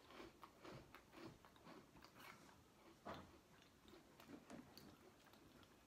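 Faint crunching and chewing of crunchy biscuit sticks, with irregular small crunches and one slightly louder crunch about three seconds in.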